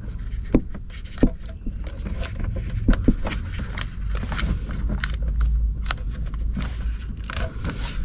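Hands tucking taped car wiring in behind an interior panel: scattered clicks, rustling and scraping of wires and plastic, over a steady low rumble.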